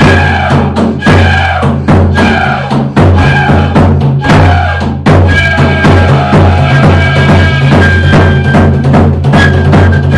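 Fife and drum duo playing a lively tune: a fife melody, with a long held high note in the second half, over a steady, driving drum beat.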